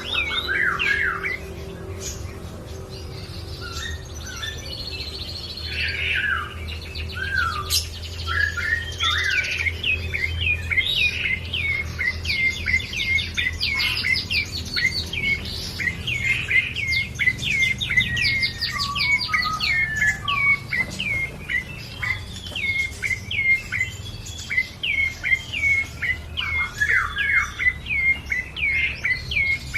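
Prenjak coki singing persistently: rapid strings of short, high notes, each dropping sharply in pitch, repeated in fast bursts with brief pauses. A steady low hum sits underneath.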